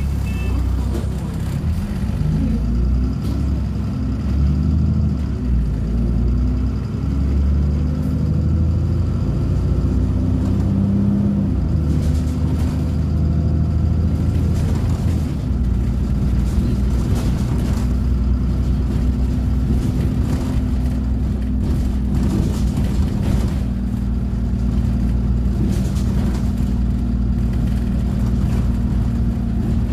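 Dennis Trident double-decker bus's diesel engine and driveline heard from inside the passenger saloon as the bus drives along. The engine note shifts and changes through the first half, then settles into a steady drone from about halfway.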